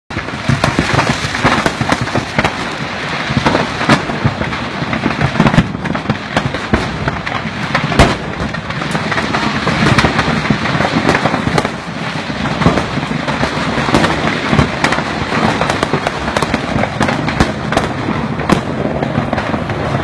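A truckload of firecrackers burning and exploding: a dense, continuous crackle of small bangs, with louder single reports now and then, such as about four and eight seconds in.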